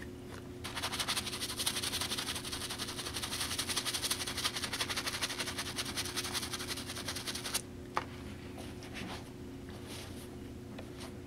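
A shoe-cleaning brush scrubs the sudsy heel of an Air Jordan 4 sneaker in rapid back-and-forth strokes, a continuous scratchy rasp. It stops abruptly about seven and a half seconds in, followed by a single click.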